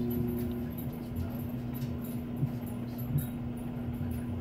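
Two short dull thumps about three-quarters of a second apart, a goat kid's hooves on the wooden cellar doors, over a steady low hum.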